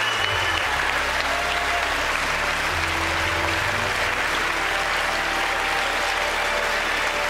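Large live audience applauding steadily, with a few low held music notes underneath during the first half.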